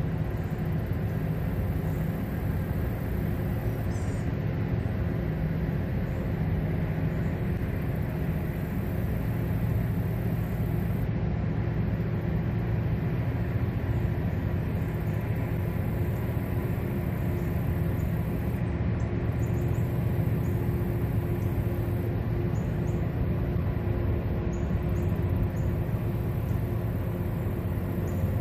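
A large river towboat's diesel engines and propeller wash making a low, steady rumble, with a faint steady hum above it.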